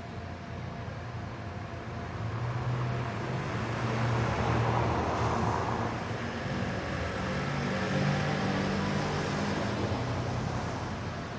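City street traffic: a vehicle passes close with a rising and fading rush about four to five seconds in, and another engine passes around eight seconds in, over a steady hum of road traffic.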